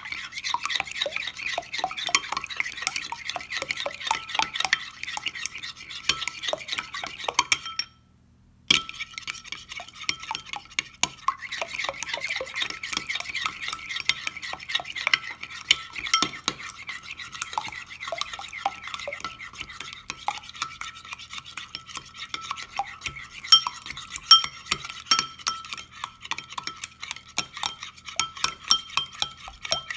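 Metal spoon stirring a runny mixture in a glass bowl, a quick continuous scrape and tap of metal against glass. The sound stops for under a second about eight seconds in. A few sharper clinks come later.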